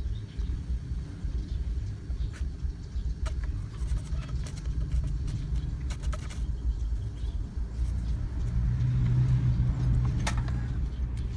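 A steady low rumble, with a deeper hum swelling for a couple of seconds near the end, under a few light clicks and taps from a hacksaw blade and PVC pipe being handled.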